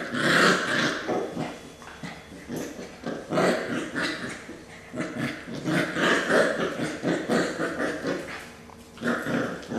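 Scottish Terrier puppy vocalizing in repeated short bursts, louder near the start and again a few seconds in.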